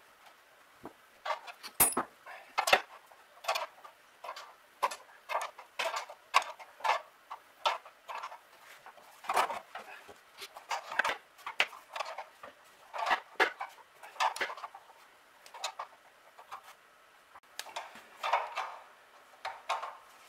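Wrench working the brass fuel-line fitting on a mechanical fuel pump: a run of irregular metal clicks and taps, about one or two a second, a few of them louder.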